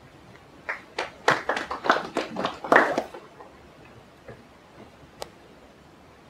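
Brief applause from a small audience: a couple of seconds of irregular hand claps that die away, followed later by a single sharp click.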